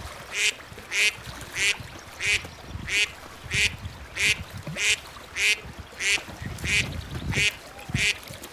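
A duck quacking in a steady, regular series of short calls, about three every two seconds.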